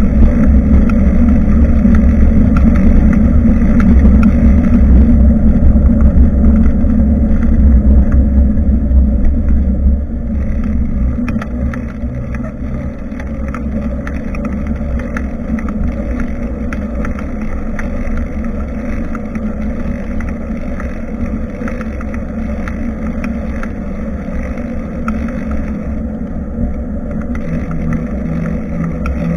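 Wind rumbling on a bicycle-mounted camera's microphone while riding, with tyre and road noise underneath. About a third of the way in it drops noticeably in level and stays quieter.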